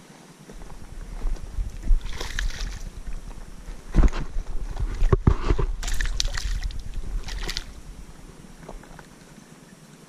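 Splashing and sharp knocks as a black bass is handled at the water's edge and dropped back into the water, over a low rumble on the microphone.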